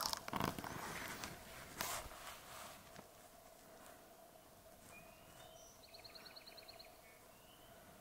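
Footsteps crunching across a bare rock outcrop for the first two seconds or so, then small birds calling: short whistled chirps and a fast trill of about ten notes, around six seconds in.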